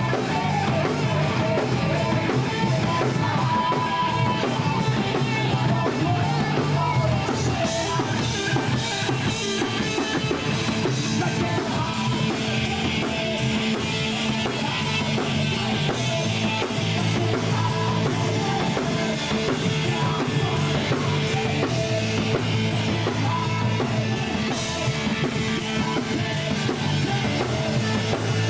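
Live rock band playing loud, steady punk-style rock: drum kit, electric guitar and bass, with the lead singer singing into the microphone.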